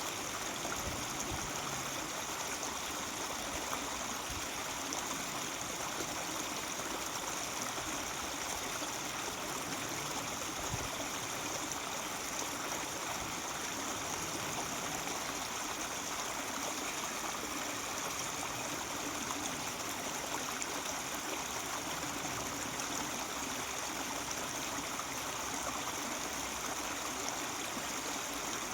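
Mountain stream babbling and trickling steadily over rocks.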